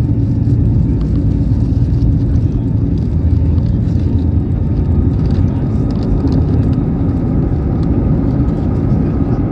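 Jet airliner's engines at high power heard from inside the cabin during takeoff: a loud, steady low noise, with a faint steady whine joining about halfway through.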